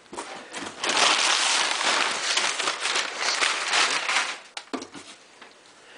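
Packaging crinkling and crackling as a box is opened, loud for about three seconds, then a few sharp clicks and knocks.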